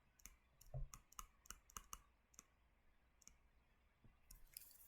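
Faint, irregular clicking from working a computer: about a dozen short, sharp clicks in the first two and a half seconds, then a pause and a soft scratchy rustle near the end.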